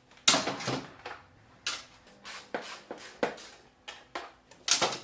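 A string of about a dozen sharp clacks and knocks as hard parts on a motorcycle are handled and worked loose, the loudest near the end.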